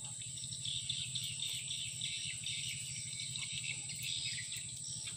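Steady high-pitched chirring of an insect chorus, with a faint even low hum beneath it.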